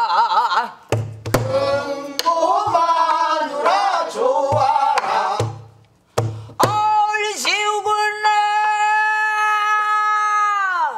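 A woman singing pansori in jungjungmori rhythm with a wide, wavering vibrato, marking the beat with stick strokes on a buk barrel drum. About two-thirds of the way through, she holds one long, steady note for about four seconds.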